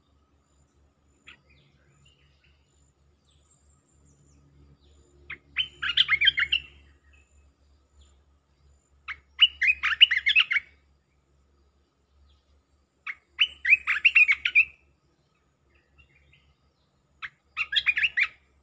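Caged puff-throated bulbul (decoy bird) singing: four bursts of song about every four seconds, each around a second and a half long and opened by a single short note. It is a new bird learning to call as a decoy.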